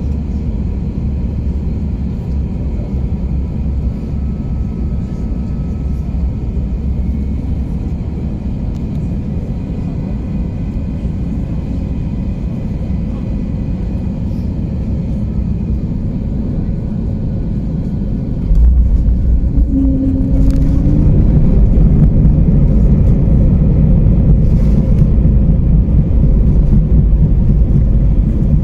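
Cabin noise of an Airbus A321neo with its Pratt & Whitney geared turbofans, a steady engine and airflow rumble on final approach; about two-thirds of the way in it jumps suddenly to a much louder low rumble as the wheels touch down on the runway, with a brief rising whine just after.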